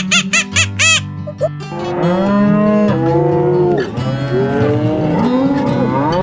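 Domestic cattle mooing: several long, drawn-out moos that overlap one another, starting about two seconds in. Before them, a few short duck quacks.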